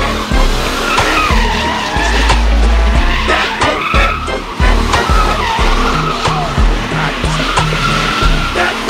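A car spinning donuts: tires squealing in wavering pitch glides over the engine revving. Underneath runs a music beat with heavy, evenly pulsing bass.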